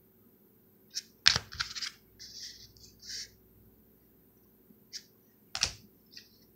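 Rigid plastic card toploaders being handled and stacked: two sharp plastic clacks, one about a second in and a louder one near the end as a toploader is set down on the stack, with softer scraping and rustling between.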